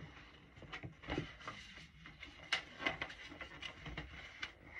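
Faint handling noise: scattered soft taps and rustles as a paperback picture book is handled and its pages turned.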